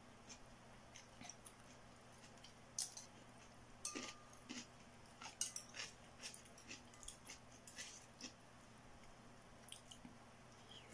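Faint eating sounds of a person having a bowl of noodle soup: chewing and slurping, with scattered short clicks and smacks over a faint steady hum.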